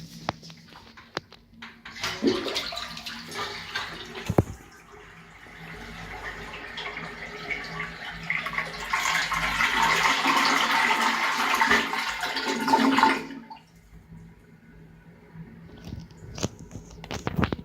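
Toto lowboy toilet flushing: rushing water that grows louder over about eleven seconds, then cuts off suddenly. A few clicks and knocks come before and after it.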